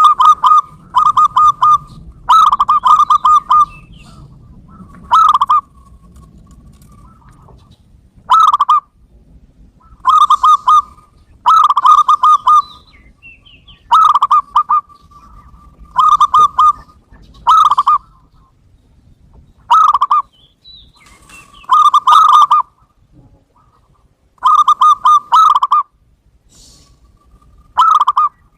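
Zebra dove (perkutut) cooing. It repeats short phrases of quick, rolling coos over and over, with pauses of a second or two between them.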